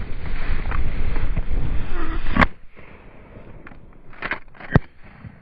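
Wind buffeting the microphone, cutting off about two and a half seconds in with a sharp shotgun shot at a flushed pheasant. A second, louder shot cracks near the end.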